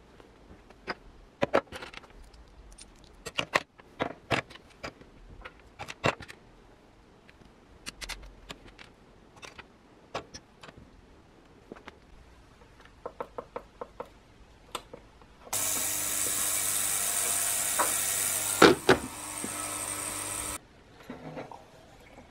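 Light scattered clicks and knocks, then a Vdema digital ultrasonic cleaner running: a loud, steady buzzing hiss for about five seconds, with a couple of sharp clicks near its end, cutting off suddenly.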